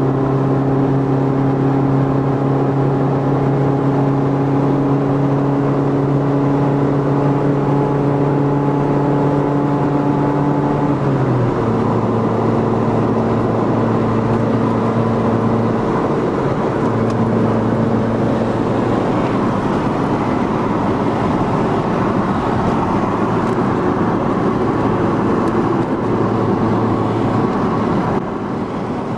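Car exhaust fitted with Roncar Coyote Quattro 2Way+ switchable exhaust tips, the engine holding a steady drone. About eleven seconds in the note drops slightly and a rushing noise grows under it.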